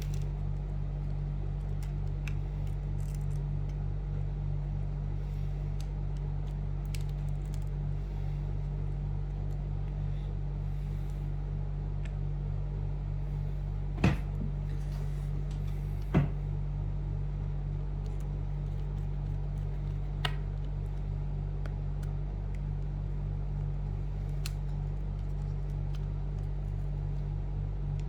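Steady low electrical hum with small scattered clicks from handling a laptop's small parts and screwdriver, including two sharper clicks about two seconds apart midway through.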